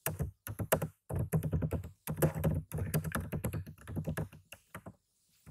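Typing on a computer keyboard: rapid runs of keystrokes in several bursts, stopping briefly near the end.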